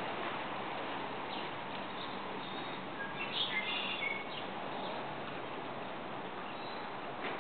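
A few short, high bird chirps about three to four seconds in, over steady background noise.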